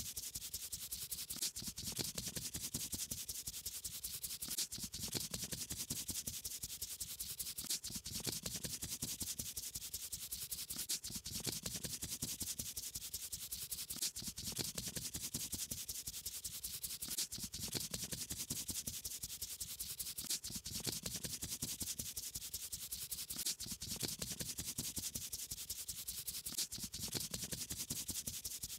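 Steady scratchy rubbing of a paintbrush stroking over paper, in a loop that repeats every few seconds.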